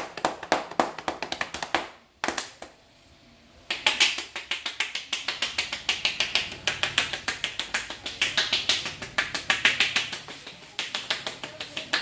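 Fast, rhythmic slapping of a barber's joined, cupped hands striking a man's head in Indian head-massage tapping. It pauses about two seconds in and starts again about a second and a half later.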